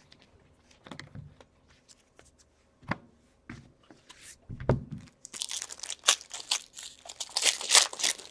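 Scattered light taps and clicks of trading cards being handled, then from about five seconds in a trading card pack wrapper being torn open and crinkled, loud and crackly.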